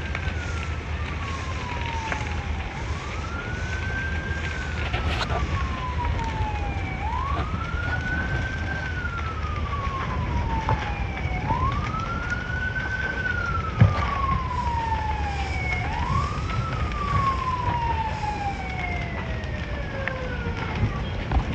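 Emergency vehicle siren wailing. Each cycle rises quickly and falls slowly, about five cycles some four seconds apart, over a steady low rumble. A single sharp crack comes about two-thirds of the way through.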